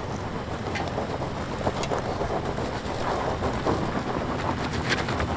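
Toyota 4Runner's 4.0-litre V6 running low and steady as the SUV crawls slowly up a rocky trail, its tyres crunching over loose rock. A few sharp clicks of stones snap and pop under the wheels.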